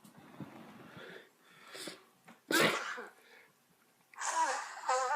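A sharp, loud sneeze about two and a half seconds in, after a few fainter breathy sounds. Near the end comes a short pitched vocal sound that bends in pitch.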